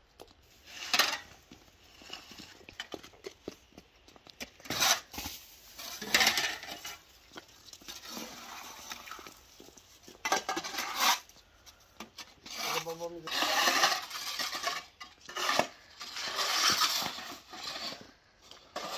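Snow shovels scraping over paving stones in irregular strokes, pushing slushy snow. A short voice call is heard about two-thirds of the way through.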